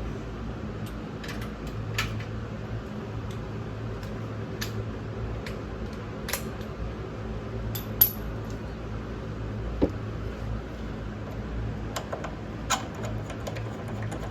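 Scattered metallic clinks and clicks of a torque wrench and socket being worked on a motorcycle's front axle, over a steady low hum. The sharpest clink comes about halfway through, with a brief high ring, and two smaller knocks follow.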